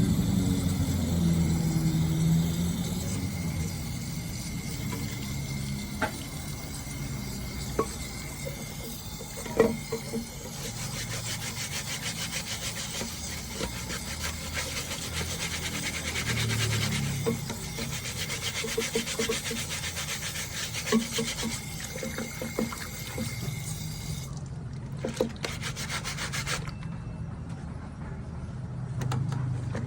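Laptop screen being scrubbed clean with quick, repeated rubbing strokes, with a few sharp clicks in between.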